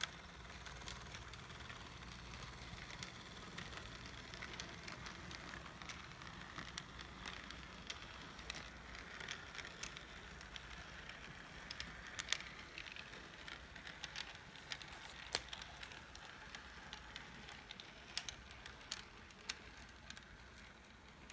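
HO scale model train running along the track: a faint steady hum with light rolling hiss and irregular sharp clicks of the wheels over rail joints, a few louder ones in the second half.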